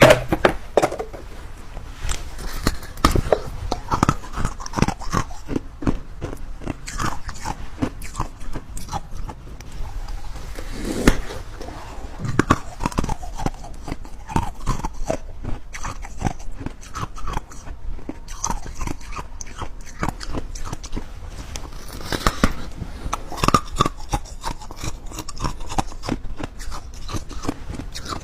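Close-miked ASMR eating: biting and chewing with irregular crunches and wet mouth clicks, several louder bites standing out.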